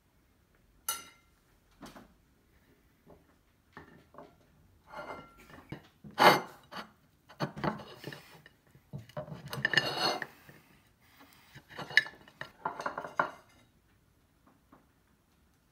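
Metal spoon scraping and clinking against a ceramic plate as it is pushed down through a Clif bar: a couple of sharp clinks first, then several bursts of scraping, the loudest about six seconds in, ending near the end.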